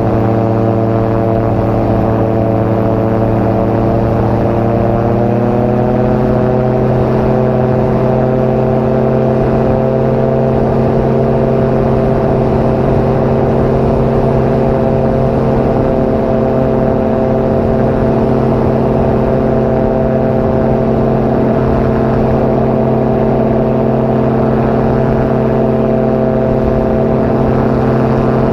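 Gyroplane's Rotax engine running at high power, its pitch rising over about two seconds some five seconds in and then holding steady, as in a takeoff and climb.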